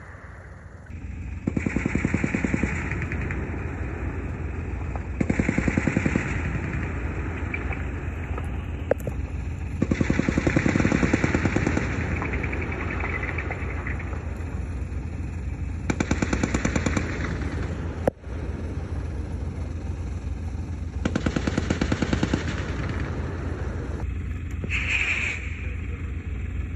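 Automatic gunfire in about five bursts of a second or two each, spaced several seconds apart, over a steady low rumble.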